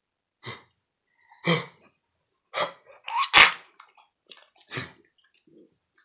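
Dog with kennel cough in a coughing fit: about six short, harsh hacking coughs spread across a few seconds, the loudest about three and a half seconds in.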